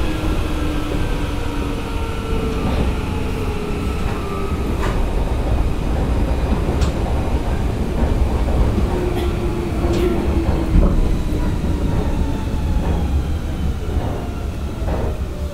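Hanshin 5001-series 'Jet Car' commuter train running, heard on board: a steady low rumble with scattered wheel clicks over rail joints and a motor and gear whine falling slowly in pitch as the train slows.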